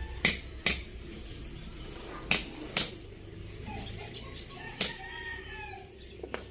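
Hammer knocking nails into a scrap-wood and bamboo frame: six sharp blows at uneven intervals. A short animal call sounds about five seconds in.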